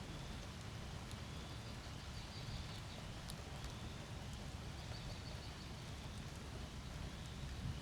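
Thunderstorm ambience: a steady low rumble of rain and storm noise with faint, high bird chirps over it, including a short run of quick chirps about five seconds in.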